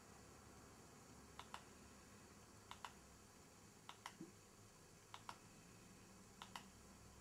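Faint clicks of a TV remote's select button as letters are picked on an on-screen keyboard: five double clicks, press and release, about one every 1.2 seconds.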